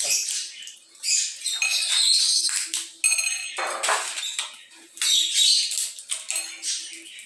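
Dry fava bean pods crackling and snapping as they are broken open and shelled by hand, in a series of short, irregular crackles with one louder crack about halfway through. The pods are fully dry and brittle.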